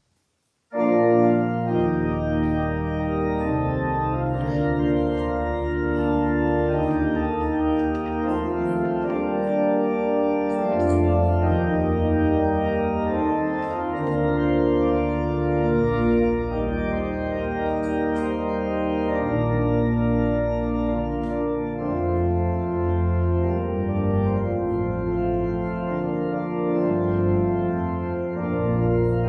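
Church organ playing a postlude in sustained full chords with deep pedal bass, starting suddenly about a second in.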